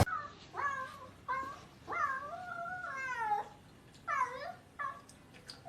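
A cat meowing repeatedly: about five separate meows, the third one long and drawn out.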